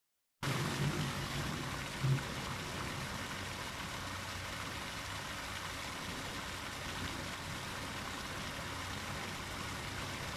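Park water fountain splashing steadily, cutting in abruptly about half a second in, with a brief low thump about two seconds in.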